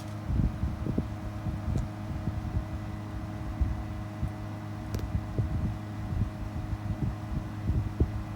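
Mitsubishi Electric MUZ-GV221 air conditioner outdoor unit running: a steady compressor and fan hum with several held tones, over an uneven low rumble.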